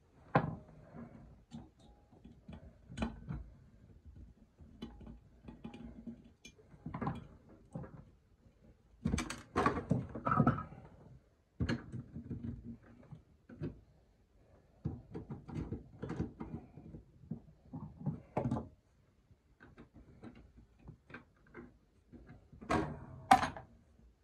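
Irregular knocks, clicks and clattering handling noises, with louder bursts of clatter about nine to eleven seconds in and again near the end.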